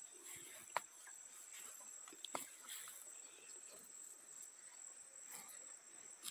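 Faint, steady high-pitched chirring of insects, with a couple of faint clicks about one and two and a half seconds in.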